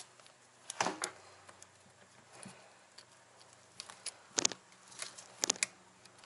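Wiring being handled on a winch motor: the corrugated plastic cable loom and a terminal end give short, light clicks and knocks in three small clusters, about a second in, past four seconds and past five seconds.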